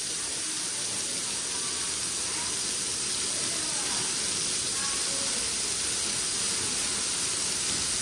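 Waterfall at low flow: thin streams falling from a cliff onto rocks close by, a steady hiss of falling and splashing water.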